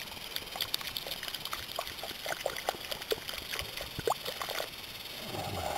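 Water being poured into a clay-lined pit bowl dug in the ground, a continuous run of small plops and drips as it fills.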